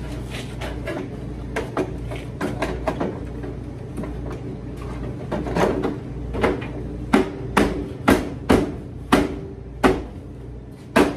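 Sharp knocks and clicks on a dryer's sheet-metal cabinet as its panel is fitted back on, scattered at first, then a string of louder knocks about two a second in the second half.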